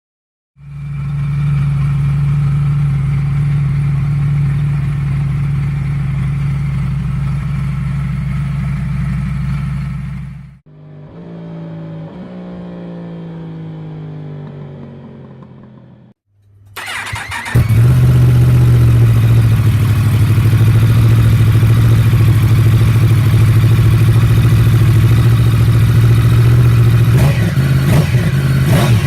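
Yamaha MT-10's crossplane inline-four engine running through an Akrapovic titanium R1 end can, heard in several cut-together clips: a steady idle, then a quieter stretch where the revs fall away, then a louder steady idle that starts abruptly, with a few sharp sounds near the end.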